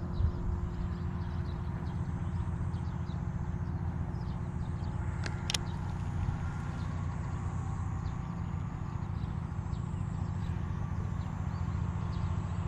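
Wind buffeting the microphone as a steady low rumble, with scattered faint ticks and one sharp click about five and a half seconds in.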